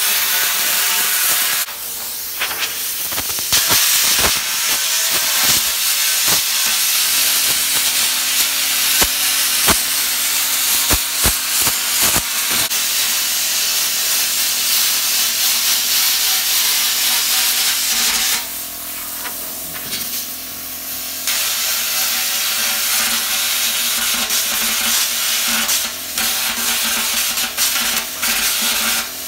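Plasma cutter torch (Parkside PPS 30 A1) cutting through the steel of a rusty drum: a loud, steady hiss of the air-plasma arc with sharp crackles in the first half. The hiss thins briefly twice, about two seconds in and again around two-thirds of the way through.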